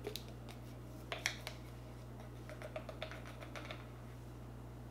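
Faint, scattered clicks and taps of a measuring spoon against a spice jar as ground cinnamon is scooped out and tipped into a mixing bowl. There is a small cluster about a second in and a run of light ticks between about two and a half and three and a half seconds.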